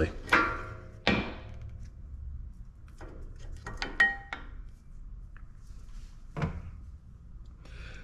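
Old brake pads being pulled out of a Brembo four-piston front caliper, their steel backing plates clinking and scraping against the caliper. There are two ringing clinks near the start, a cluster of clicks with one clear metallic ping about halfway through, and a duller knock later.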